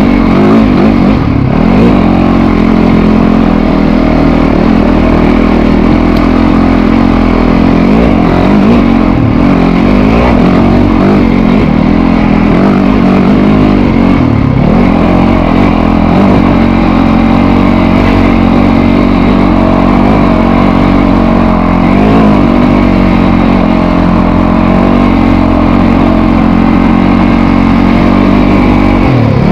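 Dirt bike engine heard up close from on board while riding a dirt trail, running hard with its pitch dipping and rising again several times as the throttle closes and opens.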